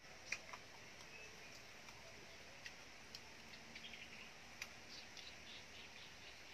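Faint eating sounds: scattered small clicks and smacks of a person chewing and gnawing a piece of steamed chicken held in her hands, with the loudest click about a third of a second in.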